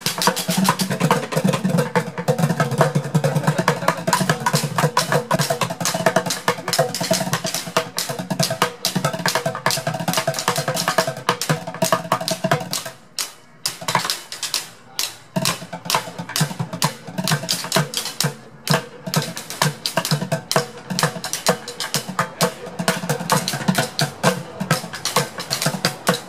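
Several drummers striking white plastic buckets and a shopping cart with drumsticks in a fast, dense street-drumming rhythm. The playing thins out for a couple of seconds around halfway through, then picks back up.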